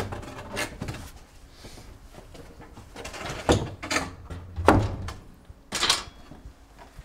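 Old wooden garage doors being handled and pushed open: a run of wooden knocks, thumps and rattles, the loudest coming between about three and a half and six seconds in.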